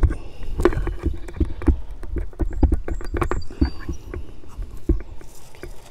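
Gloved hands working quarter-inch poly drip tubing onto a barbed connector in the main line: irregular rubbing, tapping and clicking handling noises over a low rumble.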